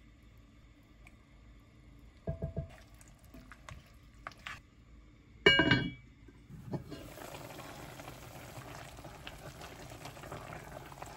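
A few light knocks of utensils against a Staub cast iron cocotte, then its heavy cast iron lid set down with a loud ringing clank about five and a half seconds in. After that, tomato and vegetable soup boiling in the pot with a steady bubbling hiss.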